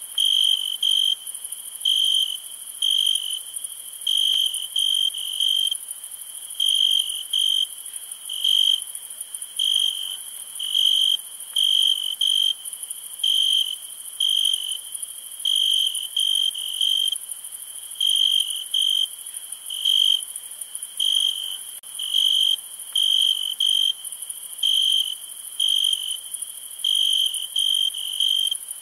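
Insects chirping: short, clear, high chirps in uneven clusters of one to three, about one to two a second, over a steady high hiss.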